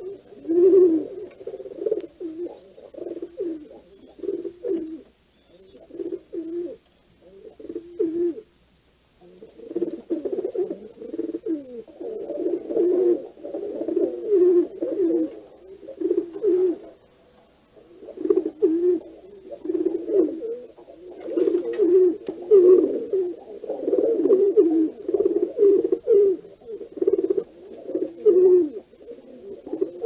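Pigeons cooing in a continuous run of low, repeated, overlapping coos, with a few short lulls.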